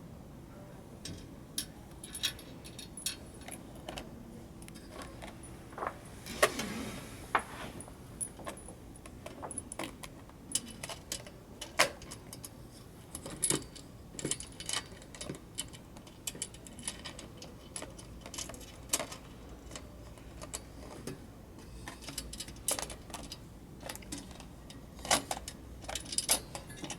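Light, irregular metallic clicks and clinks of small chandelier hardware being handled as a nut is threaded by hand onto a light's stem behind its washer.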